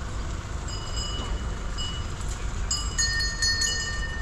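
Brass bell hanging from a walking elephant ringing again and again, about once a second, with a clear high ring and a few rings close together near the end, over a steady low rumble.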